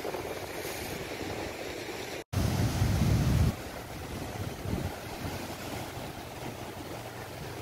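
Ocean surf washing over shoreline rocks, with wind blowing on the microphone. About two seconds in the sound cuts out for an instant, then a loud low rumble of wind on the microphone lasts about a second.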